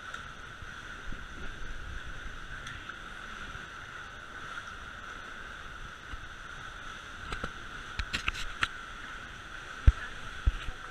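Small tour boat's engine running steadily at low speed, with a constant whine over a wash of water. A few short sharp knocks come near the end.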